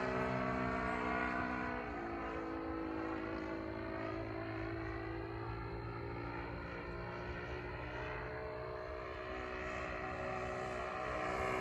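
Engine of a large radio-controlled airplane in flight, a steady droning note. Its pitch drops about two seconds in as it passes, it stays fainter through the middle, and it grows louder near the end as the plane comes back.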